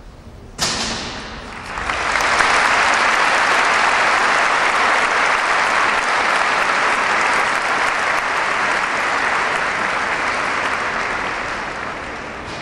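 Audience applauding in a large hall. A sudden sharp sound opens it, then the clapping builds within a couple of seconds, holds steady, and fades near the end.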